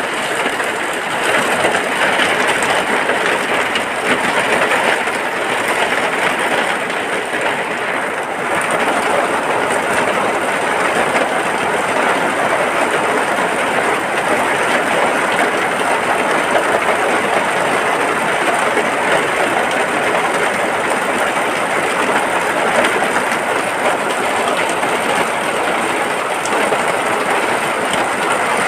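Heavy rain falling steadily, heard from inside a hut: a dense, even rush of countless drops that hardly changes.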